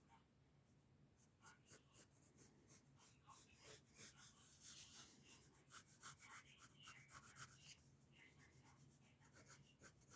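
Pencil scratching on paper in many short, quick sketching strokes, faint, with a brief let-up near the end.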